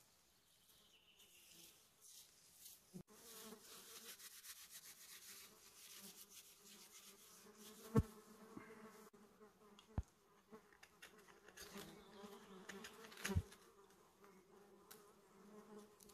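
Flying insects buzzing steadily close by, a low hum. Three sharp clicks of handling sound in the second half.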